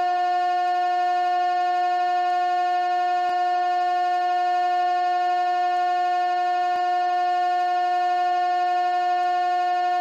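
Steady electronic tone with a buzzy edge from many overtones, held at one mid pitch without a break: a speaker water-ejection tone, played through a phone's loudspeaker to shake moisture out of it.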